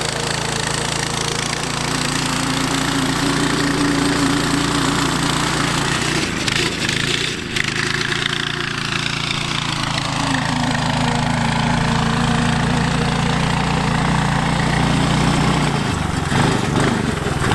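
420cc single-cylinder go-kart engine running steadily, its pitch shifting a little around the middle.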